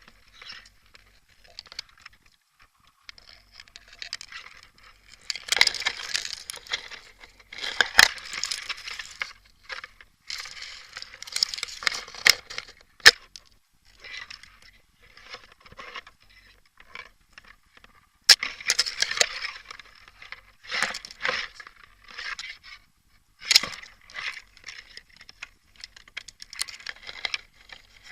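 Rustling and crackling in irregular bursts, like someone pushing through dry undergrowth with gear rattling, with about five sharp snaps or clicks scattered through it.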